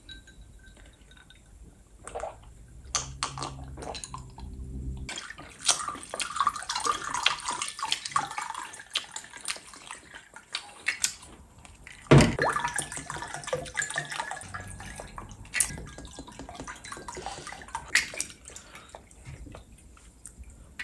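Whisky poured from a bottle into a stemmed glass: a splashing, trickling flow that comes and goes, with a few sharp clinks of glass, the loudest about twelve seconds in.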